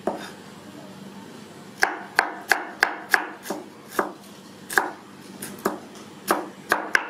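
Kitchen knife chopping carrot slices into strips on a wooden cutting board. One stroke at the start, then from about two seconds in a quick, uneven run of sharp knocks, about three a second.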